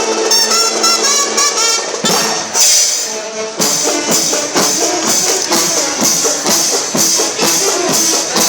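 Recorded music: a pitched melody that gives way, about two seconds in, to a steady beat of evenly spaced percussion strokes with bright jingling on top.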